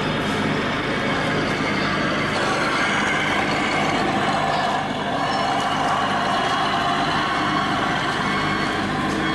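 Steady diesel truck engine sound from 1/14-scale RC trucks, most likely their engine-sound units, as the trucks drive around the course.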